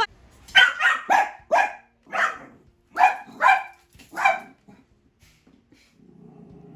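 A dog barking about eight times in quick succession, short sharp barks, alarm barking at a raccoon just outside the window.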